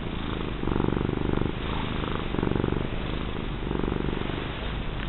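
Domestic cat purring steadily while being petted, the purr swelling and easing in a regular cycle about every second and a half as she breathes in and out.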